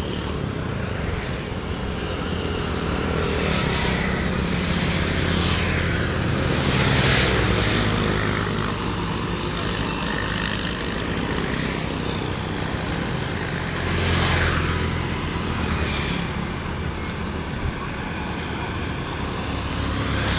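Motorbike running steadily along a road, with other vehicles passing by about a third of the way in and again past the middle. A run of short high beeps sounds about halfway through.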